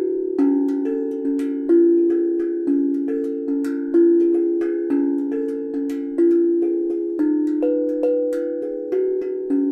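Homemade steel tongue drum (tank drum) struck with a soft mallet, playing a slow melody of ringing notes that overlap and die away slowly, about two strikes a second.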